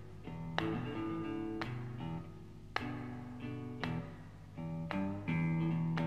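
Guitar in a slow blues recording, playing picked notes and chords that each ring and fade, about one a second, with no voice.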